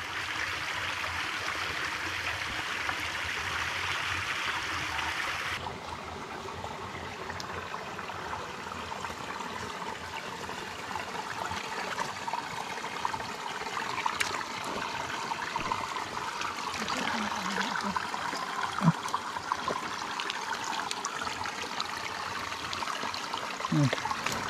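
Shallow, clear forest creek running and gurgling over rocks, a steady water sound that abruptly turns quieter and duller about six seconds in.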